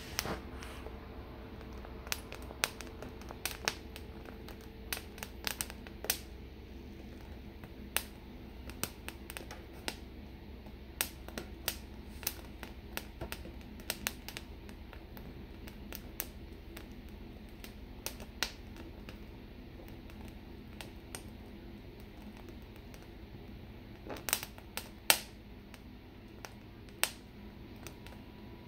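Poblano pepper skin crackling and popping in irregular sharp clicks as it blisters and chars over an open gas burner flame, over the burner's steady low rush. A few louder pops come near the end.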